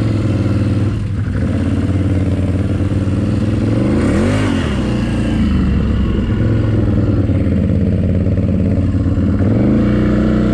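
ATV engine running at low, steady revs, with a brief rev up and back down about four seconds in and the revs rising again near the end.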